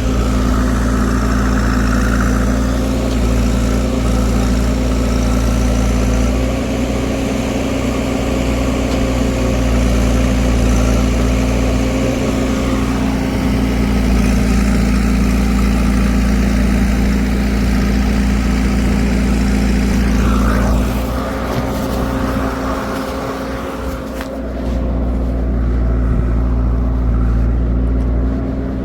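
Heavy diesel engine of a farm tractor or backhoe loader running steadily at a constant speed, its note dropping slightly and shifting about two-thirds of the way through before settling again.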